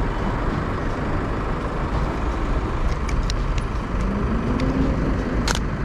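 Steady city street traffic, with a vehicle engine rising in pitch about four seconds in. A little before the end, one sharp click: the Bronica medium-format film camera's shutter firing.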